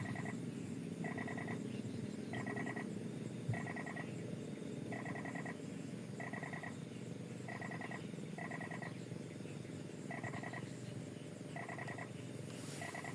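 An animal calling over and over: short, rapidly pulsed calls, a little more than one a second, about ten in all, over a steady low background noise.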